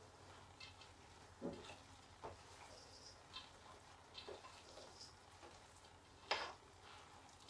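Faint scrapes and light knocks of a utensil stirring shredded hash brown casserole mixture in a stainless steel mixing bowl, a few scattered taps with the loudest knock about six seconds in.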